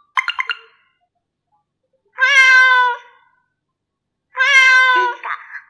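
A cat-meow clip used as a custom LINE notification tone, played through an iPhone's speaker: a quick rattle of clicks near the start, then two meows about two seconds apart.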